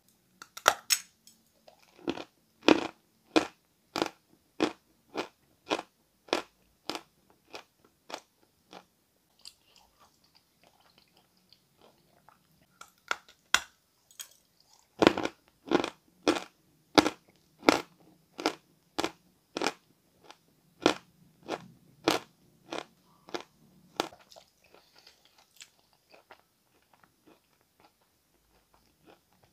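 A person bites into a slab of Peschanka chalk and chews it close to the microphone: crisp crunches, about one and a half a second. There are two rounds, each starting with a bite and fading as the mouthful is ground down, with a fresh bite about halfway through.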